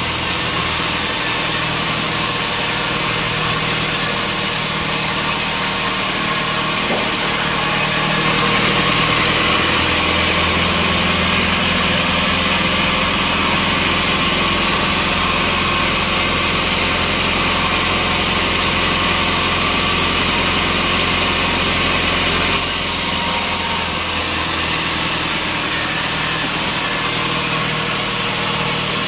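Sawmill saw and its engine running steadily; about eight seconds in the noise grows fuller and brighter for roughly fourteen seconds, as the saw cuts through a log, then drops back to the free-running sound.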